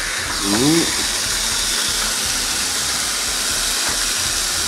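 Beef steak sizzling steadily on the hot plates of a Chefman electric panini grill press, the hiss rising slightly as the lid is lifted near the start.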